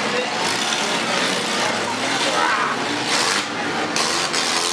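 Several small demolition derby cars' engines running and revving together over a dirt track, with one engine revving up a little after two seconds.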